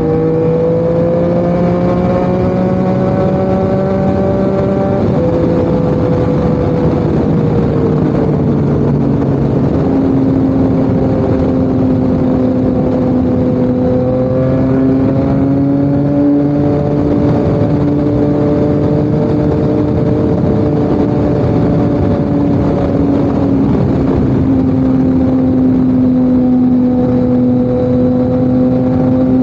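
Yamaha MT-09 crossplane inline-three engine running through an SC Project CRT exhaust at steady cruising revs, its pitch slowly climbing and then stepping down sharply about five seconds in and again near the end, like gear changes.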